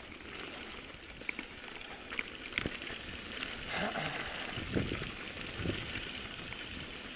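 Mountain bike rolling downhill over a dirt and stony trail: tyres crackling over grit and small stones, with scattered clicks and rattles from the bike and a few low thumps from bumps around the middle.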